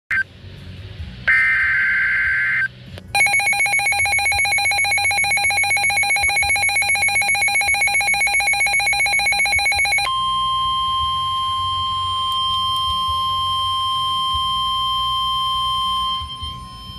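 Emergency Alert System tones announcing a severe thunderstorm warning. A short screech of digital header data comes first, then about seven seconds of a rapidly pulsing alert tone, then a steady single-pitch warning tone that cuts off about a second before the end.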